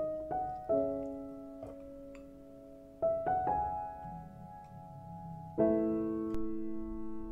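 Background music: soft solo piano, single notes and chords struck and left to ring and fade, with the fullest chord about five and a half seconds in.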